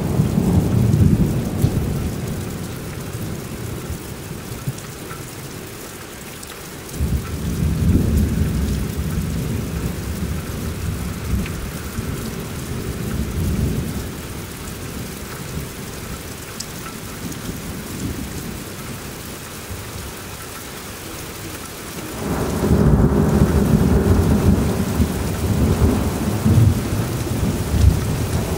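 Thunder rumbling over steady heavy rain. One rumble fades in the first few seconds, another builds about seven seconds in, and a loud peal breaks suddenly about twenty-two seconds in and rolls on to the end.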